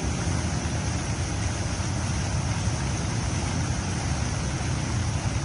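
Water fountain splashing: a steady rush of falling water with a heavy low rumble and no change throughout.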